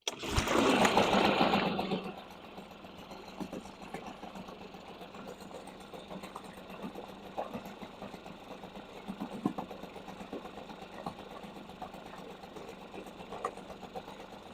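Small two-stroke outboard motor starting up. It runs loudly for about two seconds, then settles to a steady, quieter idle. This is its first start of the season after sitting five months and after fuel was cleared from a flooded cylinder.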